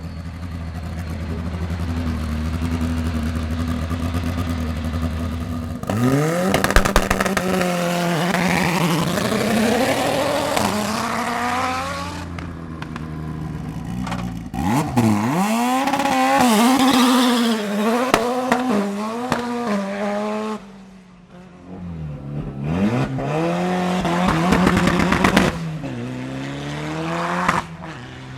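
Race car engine on a hillclimb run. It holds a steady drone, then about six seconds in it turns sharply louder and the revs climb and drop again and again through gear changes and corners, fading briefly near the end.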